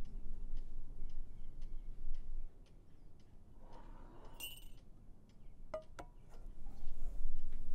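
A clock ticking about twice a second, then a bright, high chiming ring about four and a half seconds in and two sharp clinks close together near six seconds.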